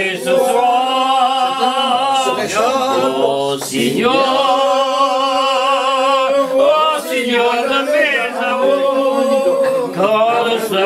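A man singing unaccompanied, holding long notes with a wide vibrato and pausing briefly for breath about two seconds in and again near the end.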